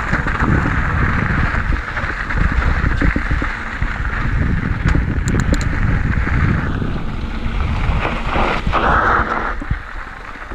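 Wind buffeting the camera microphone over the rumble of a mountain bike's tyres rolling along a dirt trail, with a few light clicks about halfway through.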